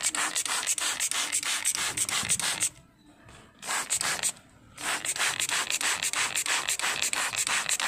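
Plastic trigger spray bottle pumped rapidly and repeatedly, each pull a short hiss of mist. The pulls come in three runs, broken by short pauses about three and four and a half seconds in.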